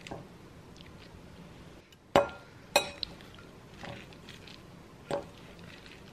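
A metal fork clinking and scraping against a glass bowl while salad is tossed: about half a dozen scattered sharp clinks, the loudest two about two seconds in.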